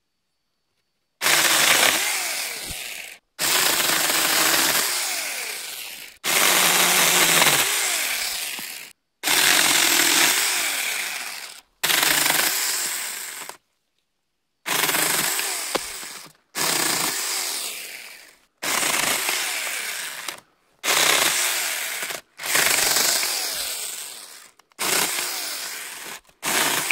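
Saker 4-inch cordless electric mini chainsaw, 20-volt battery, cutting through small branches in about a dozen short bursts of two to three seconds each. Each burst starts loud and fades as the cut finishes, with the pitch sliding as the chain bites.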